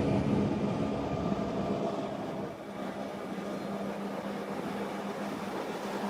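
Rack-railway train running, its low rumble easing about two seconds in to a steadier, quieter run with a held hum.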